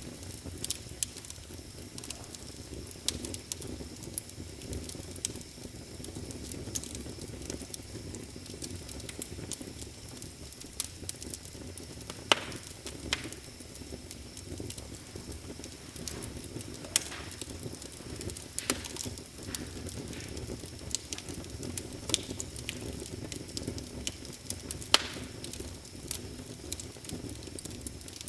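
Wood fire crackling in a fireplace: a steady scatter of small clicks with a few louder pops, over a low steady rumble.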